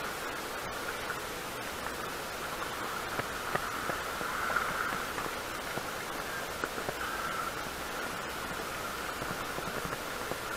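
Steady rushing noise of wind and choppy sea water, with a few faint knocks.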